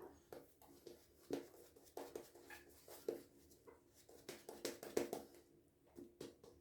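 Faint wet swishing of a synthetic-knot shaving brush working soap lather after extra water has been added, in irregular soft strokes with small clicks.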